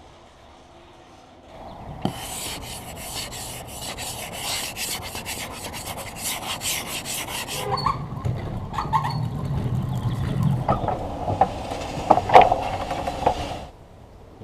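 Rapid, rhythmic scraping and rubbing, then slower rubbing and handling noise with several knocks, one louder knock near the end.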